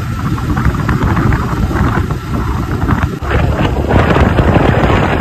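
Wind rushing over the microphone of a handlebar-mounted camera on a moving motorcycle: a loud, steady rumble, with the bike's running and road noise mixed in.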